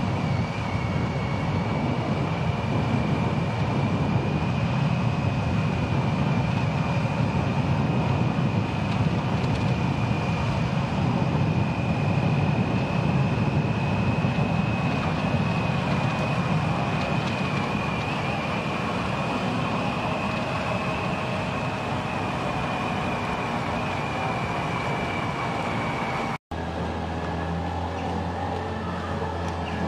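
Steady running drone of a camera motorcycle riding behind a racing cyclist: engine and wind rush with a thin high whine held throughout. Near the end the sound cuts abruptly to a steadier low hum.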